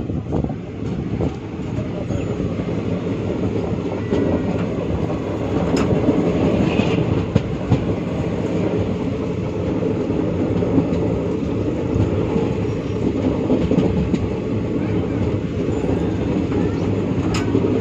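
Passenger train running along the track, heard from aboard: a steady rumble of wheels on rail with a few sharp clicks.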